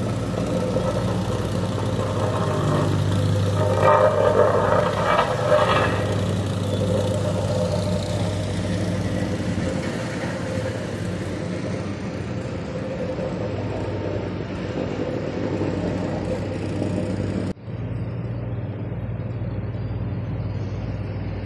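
Diesel engines of asphalt paving machinery, a road roller and a paver, running with a steady low hum. A louder patch of clattering comes about four to six seconds in.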